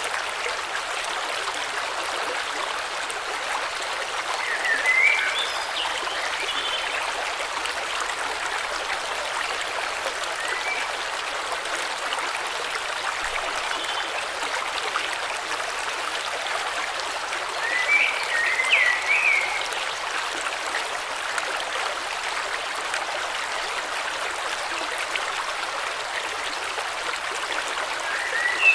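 River water flowing steadily. Short, quick bird chirps come in three brief spells: about five seconds in, around eighteen seconds in, and at the very end.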